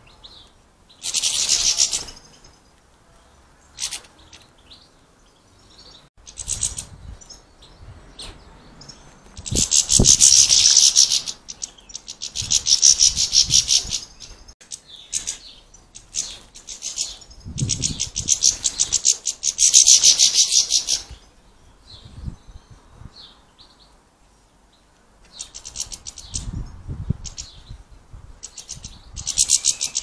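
European goldfinches chattering in repeated bursts of rapid, high twittering calls, each a second or two long, as they squabble over places at a feeder.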